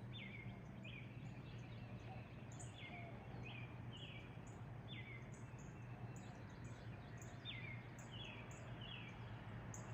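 Birds calling: repeated short chirps that slide down in pitch, about one or two a second, with thinner high chirps between them, over a steady low hum and a background hiss.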